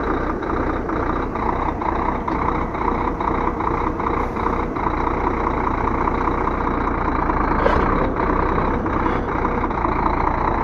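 Heavy truck's diesel engine running steadily while the truck is eased up onto wooden blocks, with a short sharp sound about eight seconds in.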